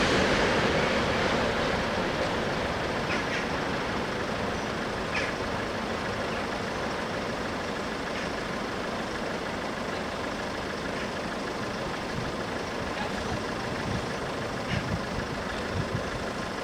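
A passing train's rail noise fading away over the first few seconds, leaving a steady rumble of road vehicles at the level crossing, with a few faint clicks.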